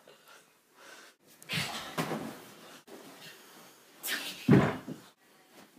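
Rustling and handling noise, then a single loud thump about four and a half seconds in.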